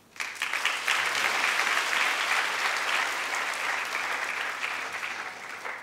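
Large audience applauding, starting at once and dying away near the end.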